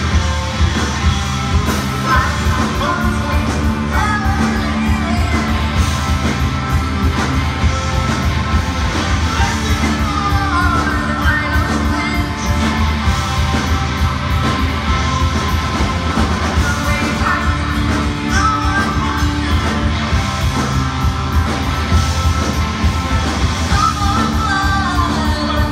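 Heavy rock band playing live: distorted electric guitars, bass guitar, drums and keyboard, with a voice singing over them.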